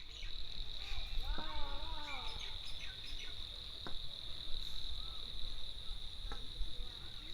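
Steady high-pitched chorus of insects, such as crickets, running unbroken over a low rumbling background. A faint distant voice is heard between about one and two and a half seconds in.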